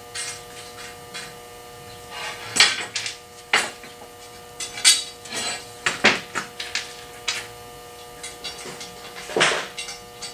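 Irregular clicks, clinks and knocks of small fasteners and parts being handled and fitted into the T-slots of a metal CNC router frame, over a steady hum.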